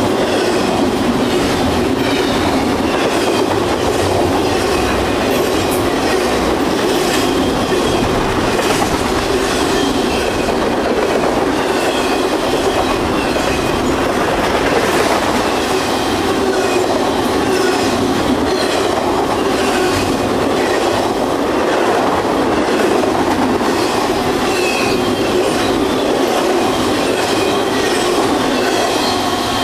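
CSX intermodal freight train's container and trailer cars rolling past at speed close by: a steady loud rumble and rattle of steel wheels on rail, with clicking over rail joints and many brief high wheel squeals.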